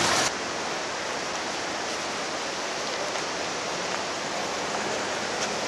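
A brief tail of truck engine noise breaks off just after the start. It gives way to a steady, even rushing hiss of outdoor noise with no distinct events.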